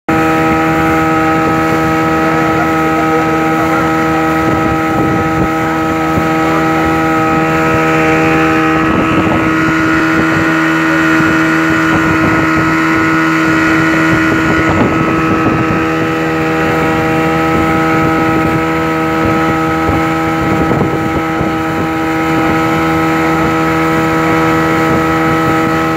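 A speedboat's outboard motor running flat out at a constant speed, one unchanging drone, over the rush of water and spray along the hull.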